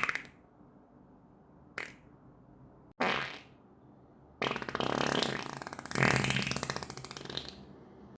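Human farts in quick succession: a brief one about two seconds in, another about three seconds in that fades out, then a long one with a rapid flutter lasting about three seconds, the loudest of them.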